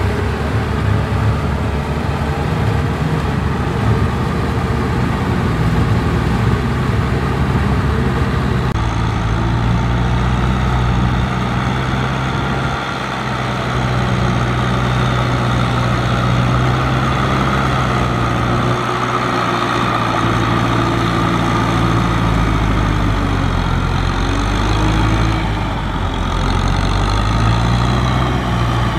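Farm tractor diesel engines run steadily under load while pulling rotary cultivators through wet soil. After a cut about nine seconds in, the sound is a Kubota M6040SU's engine, and its pitch dips briefly a few times.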